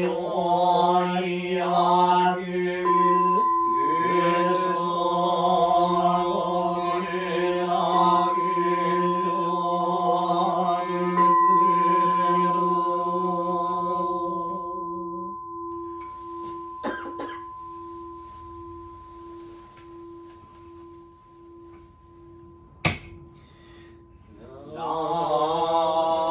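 Buddhist monks chanting a sutra verse in unison, with a temple bowl bell struck about three seconds in. The voices stop about halfway through while the bell's steady tone rings on and slowly fades. Near the end come two light clicks and one sharp knock, then the unison chanting starts again.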